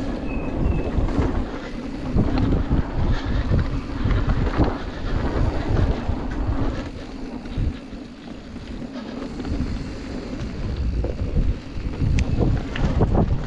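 Mountain bike rolling fast down a dirt and gravel trail: tyres crunching and rumbling over the ground, with frequent short knocks and rattles from the bike over bumps, and wind buffeting the camera microphone.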